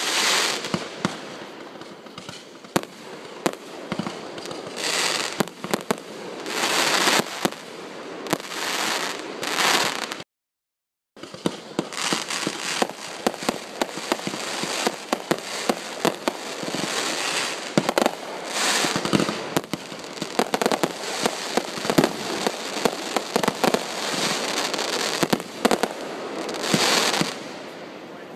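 Aerial fireworks firing in a rapid string: many sharp launch reports and bursts over a continuous hiss. Around ten seconds in the sound drops out to dead silence for under a second, then the firing resumes.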